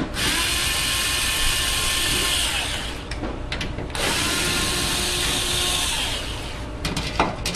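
Cordless drill/driver running twice, each run about two and a half seconds long, its pitch rising as it speeds up and falling as it stops, as it backs out the screws of the refrigerator's rear compressor cover. A few light clicks come near the end.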